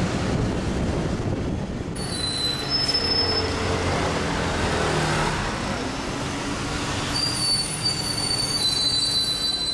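High-pitched metallic squealing, brief about two seconds in and sustained again from about seven seconds, over a steady rumble of engine and city traffic, heard from the open upper deck of a tour bus.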